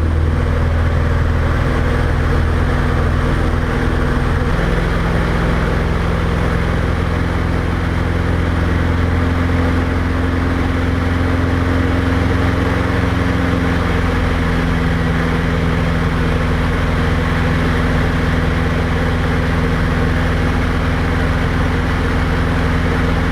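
Diamond DA20 light aircraft's piston engine and propeller running steadily in flight after take-off, a loud, even drone. Its pitch shifts slightly about four seconds in and again about fourteen seconds in.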